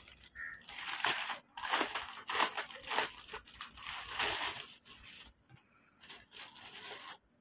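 Clear plastic packaging crinkling and rustling in irregular bursts as a clothing top is pulled out of it. The rustling gets fainter after about five seconds and stops suddenly near the end.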